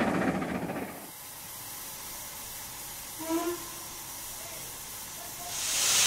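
Archive recording of a BR Britannia class steam locomotive: its running fades away over the first second, leaving a faint hiss with a brief faint tone around the middle. Near the end a loud, steady hiss of escaping steam swells up.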